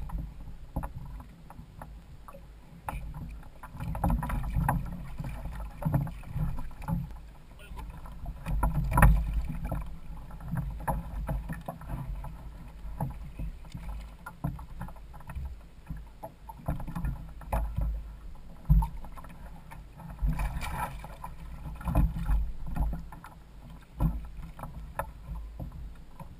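Irregular low thumps and knocks on a plastic sit-on kayak as water slaps the hull and a large fish is handled aboard and over the side. A sharper, louder knock comes about nine seconds in, and a brief splash-like hiss comes about twenty seconds in.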